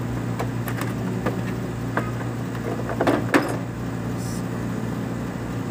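Light clicks and clinks of small flaring-tool parts being handled in a plastic tool case, with a louder cluster about three seconds in, over a steady low hum.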